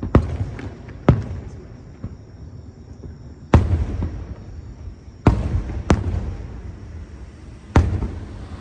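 Aerial firework shells bursting: six sharp bangs, a second or more apart, each followed by a low rolling rumble of echo.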